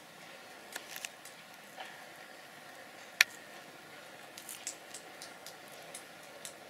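Hedgehog chewing soft red fruit: irregular wet smacking clicks, with one sharp, loud click a little after three seconds in and a quick run of clicks about a second later.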